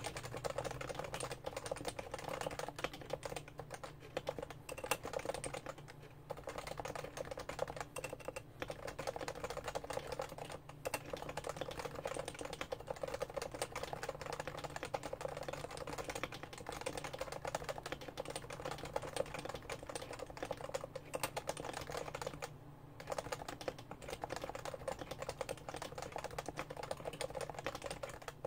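Continuous typing on a Topre Realforce R2 keyboard with Topre switches: a steady run of keystrokes, with a few brief pauses.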